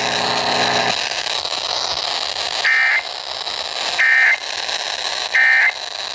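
Three short, identical bursts of Emergency Alert System (SAME) digital data, about a second and a half apart, over steady radio static hiss: the end-of-message code that closes a broadcast warning. A low buzzing tone cuts off about a second in.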